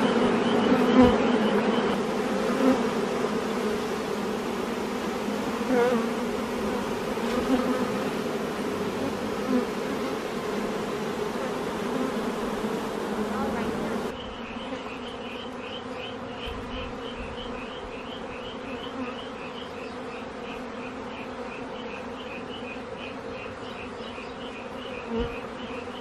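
Mass of honey bees buzzing: a steady, many-voiced hum from a crowded hive box. The hum drops in level about halfway through.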